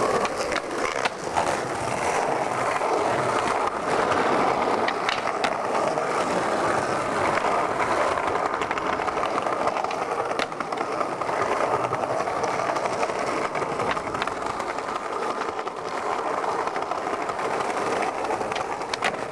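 Skateboard wheels rolling steadily over stone and concrete pavement, broken by a handful of sharp clacks from the board popping and landing on tricks.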